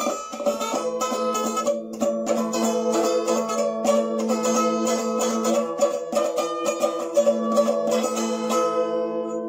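Bowl-backed mandolin played solo with a pick: a melody of held notes, each sounded by fast repeated picking.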